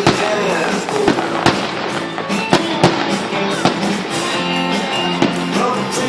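Fireworks going off in sharp bangs, roughly one every second, over loud music playing throughout.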